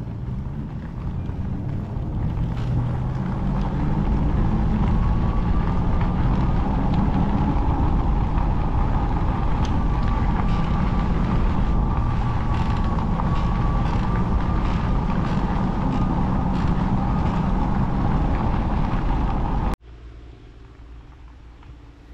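Fat-tire e-bike riding along a paved trail: steady tyre and drivetrain hum with wind rumble on the microphone. It cuts off abruptly near the end, leaving a much quieter background.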